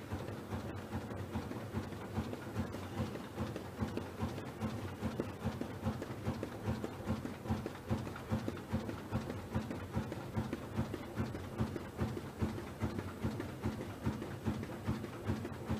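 OSF 300 flexographic printing and punching machine running, its rollers carrying a paper web through, with a steady mechanical clatter that beats evenly at about three times a second.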